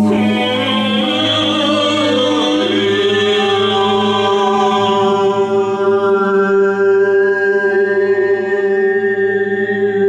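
Improvised a cappella shamanic chanting by men's and a woman's voices over a steady low sung drone. A higher voice slides in pitch at first, then settles on one long held note about a quarter of the way in.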